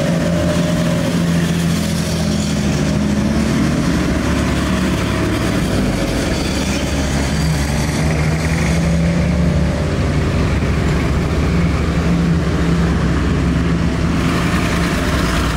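Engines of WW2 military vehicles running steadily as the convoy moves off, a loud, even drone with no clear pass-by.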